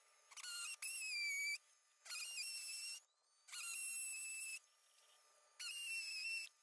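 Milwaukee M12 cordless drill drilling holes into the wall in four short runs of about a second each, its motor giving a steady high-pitched whine that starts and stops with the trigger.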